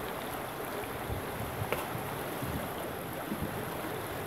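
Shallow stream running over rocks, a steady rush of water, with one small click a little under two seconds in.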